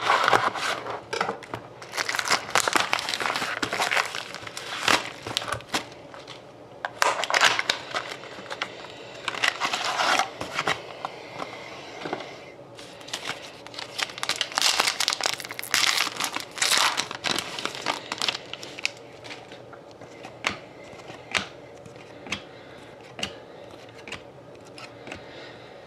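Crinkling and tearing of hockey card pack wrappers being opened, in several dense stretches, then scattered light taps and clicks of handling.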